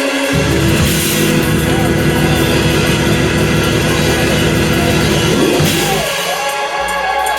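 Loud live band music with a drum kit and sustained bass notes; the bass drops out about six seconds in.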